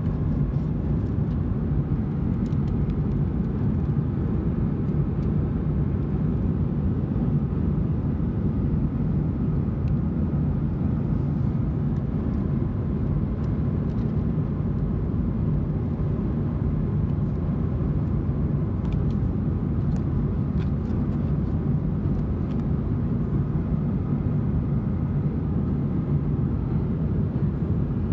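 Steady, even roar of a Boeing 737-900ER airliner, heard from inside the passenger cabin. A few faint rustles of magazine pages being turned come and go.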